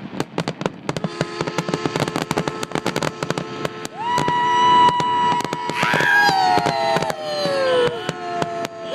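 Fireworks going off: a dense, rapid crackling for the first few seconds. From about four seconds in, several steady high whistles layer over one another, and a few of them slide down in pitch.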